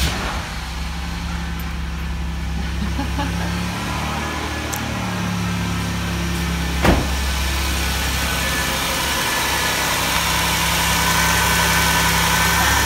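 The 3.8 V6 of a 2008 Chrysler Town and Country idling steadily, just after a new alternator and serpentine belt have been fitted. There is a single sharp knock about 7 s in. Toward the end the sound grows louder, with a faint high whine and hiss.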